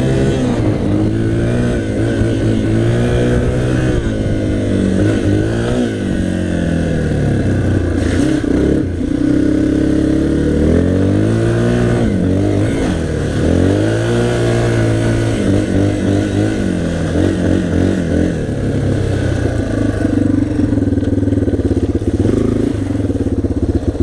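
Dirt bike engine running hard while being ridden, its pitch rising and falling again and again as the rider opens and closes the throttle, holding a steadier pitch over the last few seconds.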